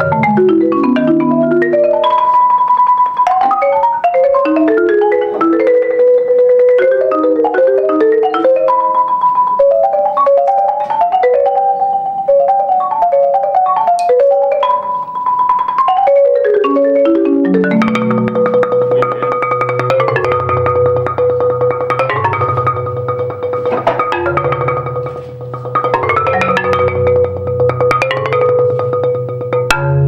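Solo marimba, wooden bars struck with soft mallets: a quick melodic passage of separate notes, then, about halfway through, rolled notes deep in the bass under a repeating higher note.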